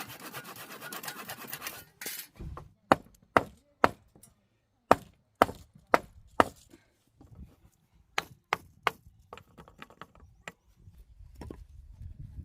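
Sharp knocks on wood, like chopping, in three quick runs of three or four strokes about half a second apart, after about two seconds of rough scraping.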